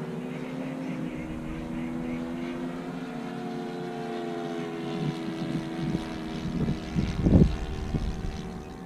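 Radio-controlled model airplane engine and propeller droning in flight, its pitch sinking slowly as the plane flies off. From about five seconds in come several low thumps, the loudest about seven seconds in.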